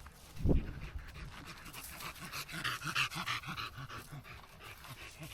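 Dog panting in quick, rhythmic breaths, with a dull thump about half a second in.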